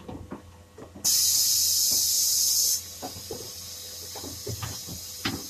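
A loud hiss of escaping compressed air starts suddenly about a second in. It lasts under two seconds, then drops to a fainter steady hiss, amid clanks and knocks of a hose-fed body-repair tool being handled against the car's bare metal.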